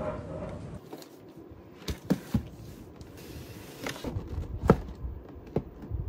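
Background chatter for under a second, then a cardboard shoebox being handled on a wooden floor: a handful of sharp taps and knocks, the loudest a little under five seconds in.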